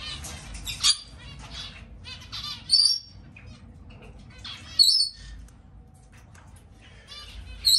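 Small aviary finches chirping and chattering, with four sharp, loud calls spread through.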